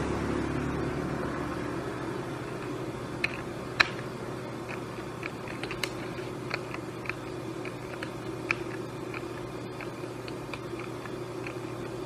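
A USB computer keyboard's Num Lock key pressed over and over, giving light, irregular clicks with one sharper click a little under four seconds in, as the board is tested for a response. A steady low hum runs underneath.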